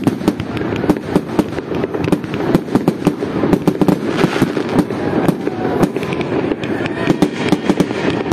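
Fireworks display: aerial shells bursting in a dense, continuous run of bangs and crackles, several cracks a second.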